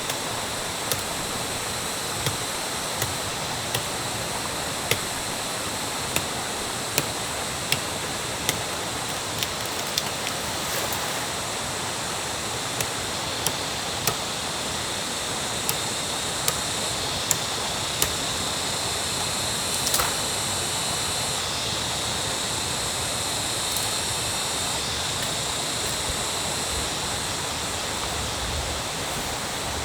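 Stream water rushing steadily, with sharp knocks roughly once a second through the first two-thirds, then only the water.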